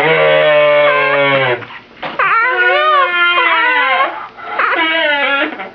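Three long, high-pitched wailing cries, each with a wavering pitch, one after another.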